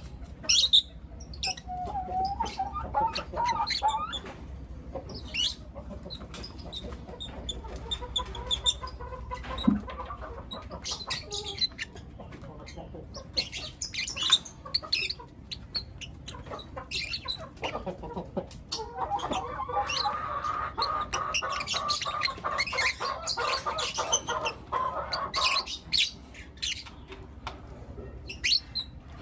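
Young lutino lovebirds chirping: short, sharp, high chirps scattered throughout, with longer spells of lower warbling chatter about two seconds in, around eight to eleven seconds, and from about nineteen to twenty-six seconds.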